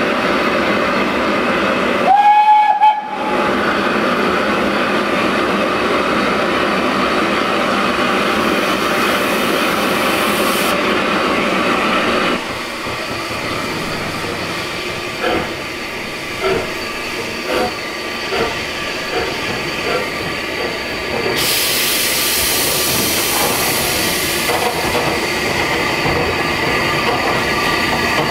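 SR Schools Class 4-4-0 steam locomotive No. 30925 'Cheltenham' standing with steam hissing, and one short whistle blast about two seconds in. About halfway through it starts away: the exhaust beats come about one a second, then quicken, and a louder hiss of steam joins near the three-quarter mark.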